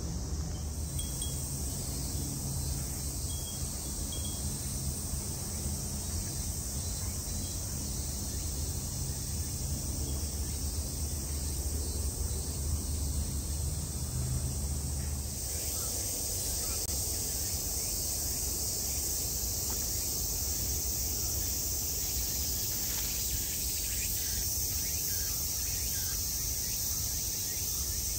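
Steady chorus of cicadas, louder from about halfway through, over a low rumble that stops at the same point.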